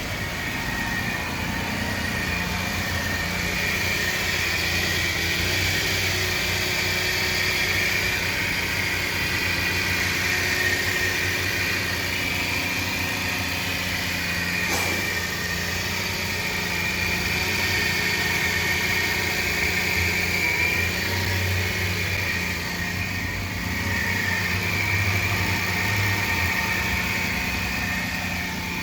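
2007 Hyundai Veracruz V6 engine idling with a steady growling and whining from the belt drive: the sign of a worn idler pulley bearing, which the owner found to be the cause. A single faint click about halfway through.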